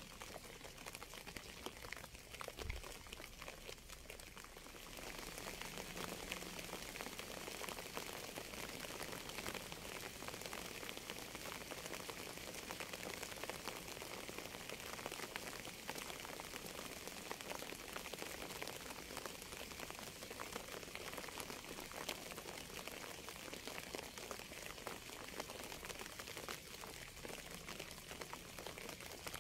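Steady rain falling in a dense patter of drops, growing heavier and louder about five seconds in. A single soft low thump comes about three seconds in.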